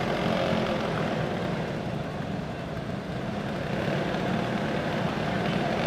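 Several racing go-kart engines running together in a steady drone, which dips slightly about halfway through.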